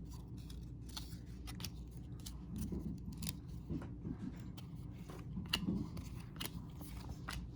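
Baseball cards being handled and flipped through one by one: light, irregular clicks and rustles of card stock.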